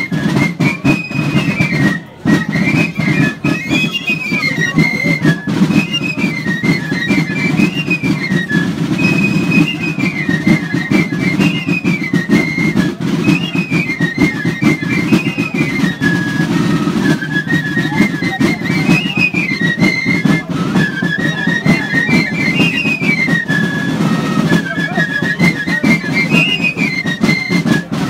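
A high pipe, like a fife, playing a lively folk melody in short rising-and-falling phrases that repeat again and again. Underneath are percussion and the noise of a crowd.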